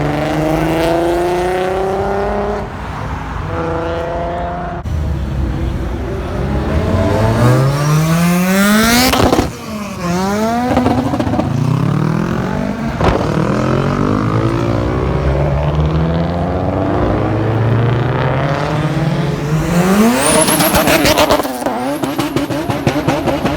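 Modified car engines revving hard and accelerating away, their pitch climbing steeply and dropping back several times, with one sharp climb about nine seconds in and another near the end.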